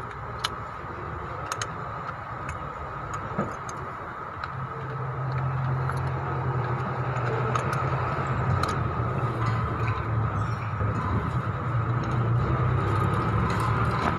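Light metallic clicks and clinks of hand tools and parts. About four to five seconds in, a vehicle engine starts to be heard running steadily, a low hum that grows louder.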